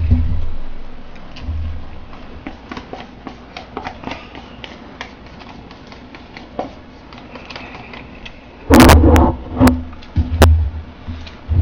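Fast eating of Samyang Buldak fire noodles from paper cups: chopsticks clicking and scraping against the cups and the sounds of eating. A loud burst of noise comes about nine seconds in, followed by a few sharp clicks.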